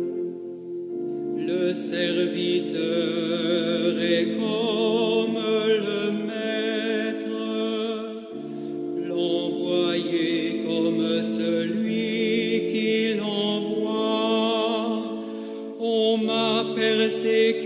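Choir singing a slow French hymn in long held notes with vibrato over sustained chords, with short breaths between phrases about eight and sixteen seconds in.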